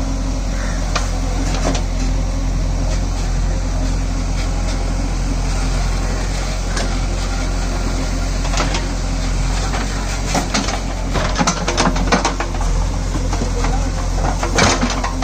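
Heavy diesel machinery running steadily, with a cluster of knocks and clatter about ten seconds in and another sharp knock near the end.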